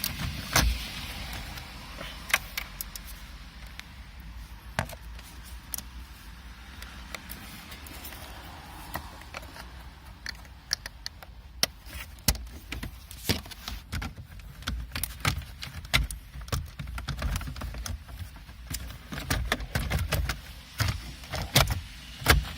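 Scattered small plastic clicks and taps from handling the climate control trim panel and its bulb sockets, as bulbs are twisted into place and the panel is fitted back into the dashboard. The clicks come thicker in the second half.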